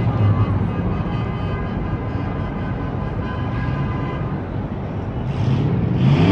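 Steady rumble of city traffic below, with one engine revving up near the end.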